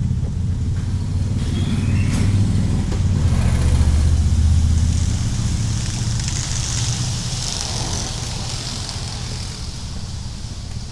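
A steady low rumble that swells for a couple of seconds about a third of the way in, then eases, with a hiss joining it around the middle.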